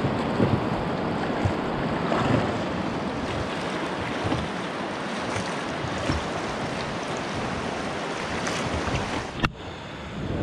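Rushing river water against a rowed raft, a steady noisy wash with wind buffeting the microphone. A single sharp knock comes near the end, after which the rush briefly drops.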